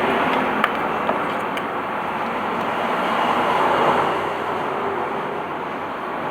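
Hot-air rework station blowing steadily while heating a phone board to lift the chips, with a few light ticks in the first couple of seconds.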